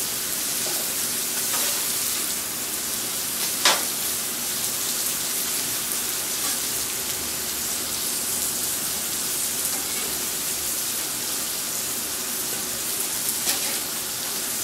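Food sizzling steadily on a flat-top griddle while a metal spatula scrapes broccoli off the steel into a stainless steel bowl, with a sharp metal clink a little under four seconds in and a couple of fainter ones.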